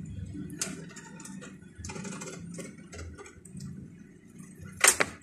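Hamsters moving and feeding in wood-shaving bedding in a plastic tub: scattered small ticks, clicks and rustles, with one louder sharp knock near the end.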